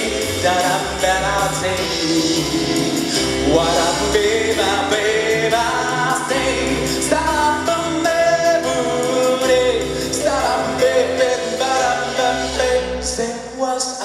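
Live band music with a sung melody line that carries no clear words, over a low bass.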